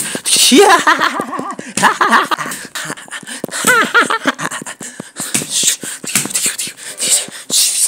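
A person's voice making wordless playful noises and vocal sound effects in short bursts, the pitch sliding up and down, with scattered clicks between them.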